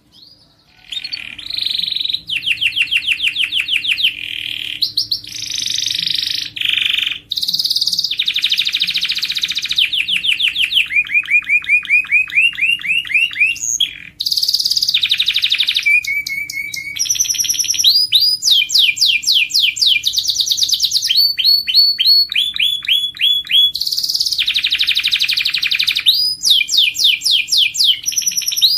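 Domestic canary singing a long song of fast trills, each a quick run of one note repeated many times, switching to a new trill every second or two.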